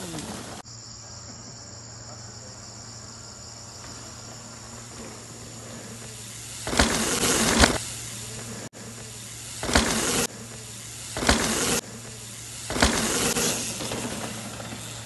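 Steady high-pitched buzz of insects in the forest. Over it come four short, louder bursts of rushing noise in the second half, the loudest sounds here.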